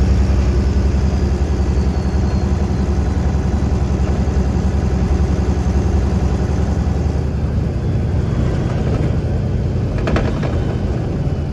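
A Freightliner semi truck's diesel engine running steadily at low speed, heard from inside the cab. A few short clicks come about ten seconds in.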